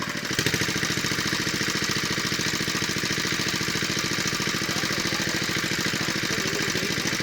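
Small engine driving a water pump, running steadily with a rapid, even chug.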